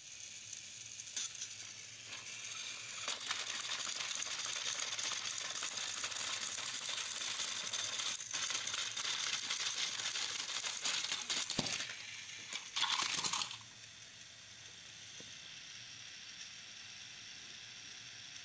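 Small electric motors of battery-powered Thomas & Friends toy engines whirring with a fast plastic rattle as their wheels grind and slip on plastic toy track while the engines push against each other. A brief louder clatter comes about 13 seconds in, after which the sound drops to a quieter steady hiss.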